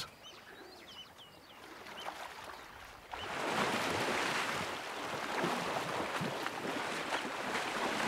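A few faint bird chirps, then, about three seconds in, loud water splashing and churning as crocodiles thrash in a river while tearing at a hippo calf carcass.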